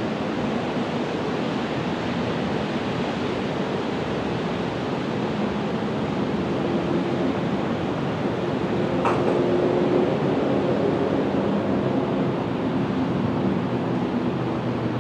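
Steady rushing background noise with a faint low hum under it, and a single sharp click about nine seconds in.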